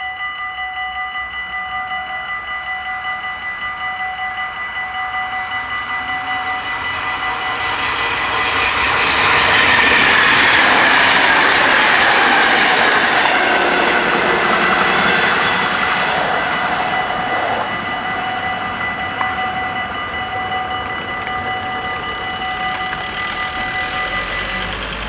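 Dutch level-crossing warning bells ringing rapidly and steadily while an NS Mat '64 (Plan V) electric train passes, its running noise swelling to loudest midway and then fading. The bells stop near the end as the crossing reopens.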